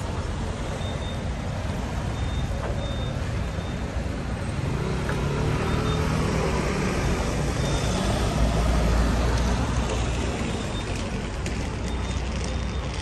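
Street traffic, with a heavy road vehicle's engine running close by, growing louder through the middle and easing off near the end.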